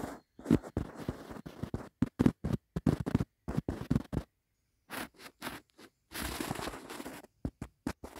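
Dry grass nest material rustling and scratching close to the microphone: a run of short, sharp scrapes and crackles with brief gaps, and a longer scratchy rustle about six seconds in.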